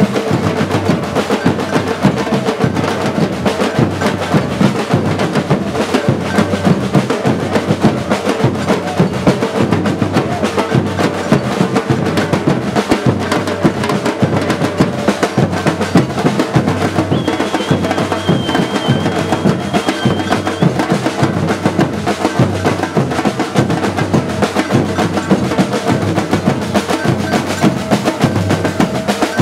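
Batucada drum group playing a steady, dense samba rhythm on bass drums and snares. A faint high held tone sounds for a few seconds past the middle.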